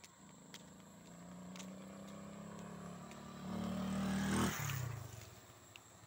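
A motor vehicle passes close by: its engine note builds over several seconds, is loudest about four and a half seconds in, then drops in pitch and fades as it goes past.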